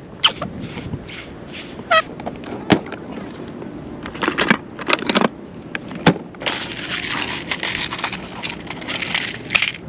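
Hands rummaging through a plastic fishing tackle box: sharp clicks and knocks of plastic cases and lids, then a stretch of rustling in the second half.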